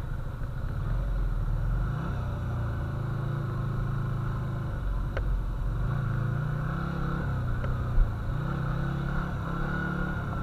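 Yamaha Virago 125's small air-cooled V-twin running at low speed through its drilled-out exhaust, its note rising and falling a little as the bike rolls slowly. There is a single short thump about eight seconds in.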